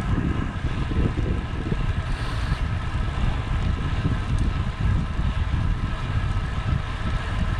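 Wind buffeting the microphone of a stem-mounted camera on a moving road bike, over the steady rumble of tyres on tarmac.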